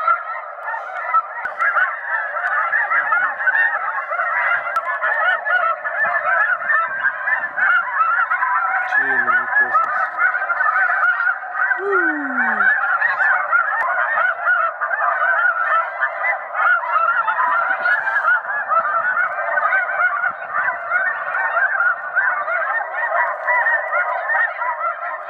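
A large flock of waterfowl calling overhead: a dense, unbroken chorus of many short overlapping calls, fading out at the very end.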